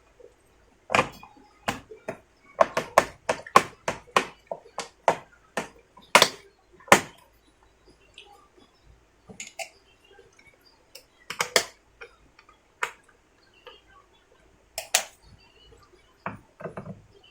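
Sharp plastic clicks and knocks of a ThinkPad Ultrabook laptop's parts being handled and fitted back together during reassembly. They come in a quick run of about two a second, then a few scattered ones later.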